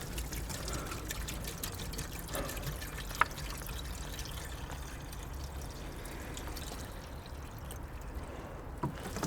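Water being poured into a VAZ 2107's cooling system, a steady trickle, with one sharp click about three seconds in.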